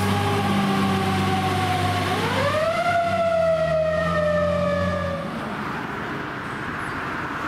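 Fire engine siren wailing over a steady low drone: the pitch slides slowly down, rises quickly about two seconds in, then falls slowly again. A little past five seconds the siren gives way to road traffic noise.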